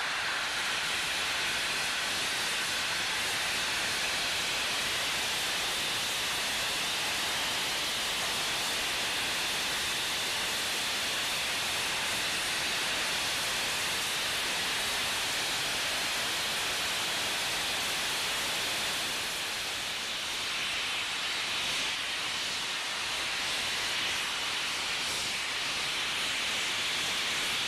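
NZR JA-class 4-8-2 steam locomotive blowing steam hard at full boiler pressure, a loud, steady hiss that dips slightly about two-thirds of the way through. It is the dry pipe being blown through to clear scale out after boiler repairs.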